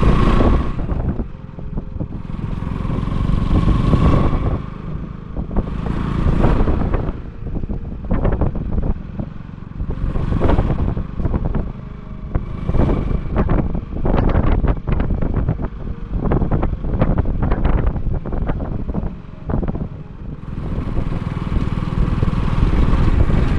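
Vehicle running over a rough, broken dirt road: a steady low engine and road rumble with wind gusting on the microphone, and a dense run of rattles and knocks over the bumps through the middle.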